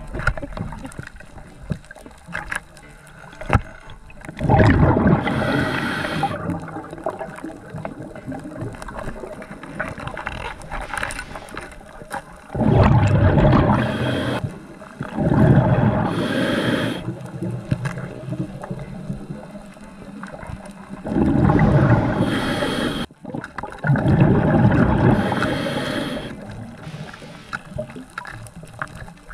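Scuba diver breathing through a regulator underwater: five loud gushing rushes of breath and bubbles, a few seconds apart, over a steady underwater wash.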